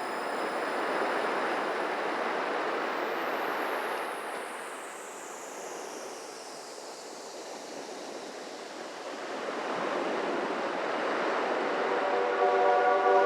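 Surf-like wash of noise in a beatless ambient synth performance. It swells, ebbs around the middle and swells again like a breaking wave, with a high falling sweep in the first half. Sustained synth chords come back in near the end.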